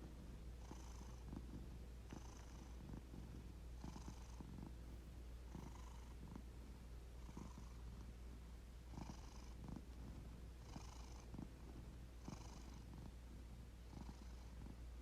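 Domestic cat purring close by, the purr swelling and easing with each breath about every second and a half to two seconds.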